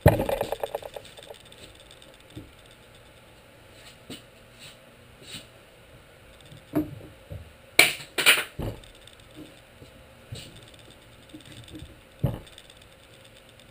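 Workshop handling noises from glue-up work on wooden panels. It opens with about a second of quick rattling, followed by scattered light knocks, two sharp clacks in quick succession about eight seconds in, and one more knock near the end.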